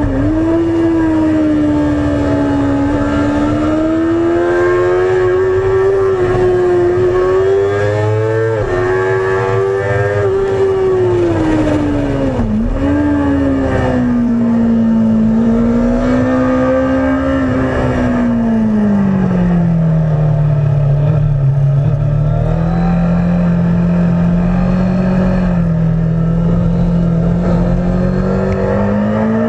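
Sportbike engine at high revs, heard from on board, its pitch rising and falling with the throttle and broken by a few brief sharp dips as it shifts gear. It eases to a lower, steadier note for the last third, with wind rush underneath.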